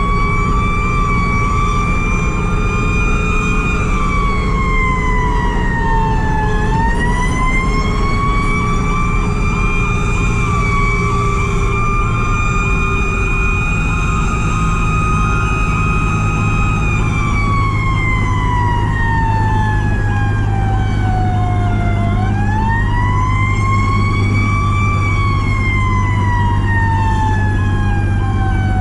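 Fire truck's Federal Q mechanical siren screaming, winding up and coasting down in long slow wails several times, held high for several seconds in between. Under it the truck's diesel engine runs steadily and a fainter electronic siren pulses about twice a second.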